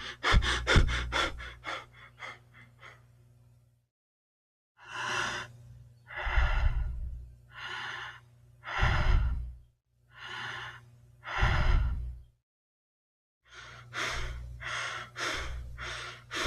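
Simulated human breathing demonstrating abnormal breathing patterns: a fast run of short, shallow breaths that fade away, a pause, then several deeper breaths of uneven depth with a short break, another pause, and a new run of quick shallow breaths near the end.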